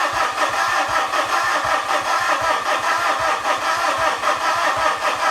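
Starter cranking the Mitsubishi Fuso FG's 4P10 four-cylinder common-rail diesel, with an even, steady beat of compression strokes. The engine does not catch: the high-pressure pump is building no rail pressure, only the electric lift pump's supply.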